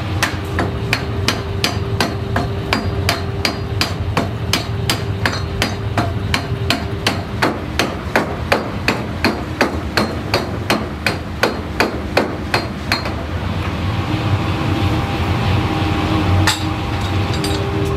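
Power hammer forging red-hot steel for a truck axle shaft: a fast, even run of heavy blows, about three a second. The blows stop about 13 seconds in, leaving the machine's steady running noise and a couple of single strikes near the end.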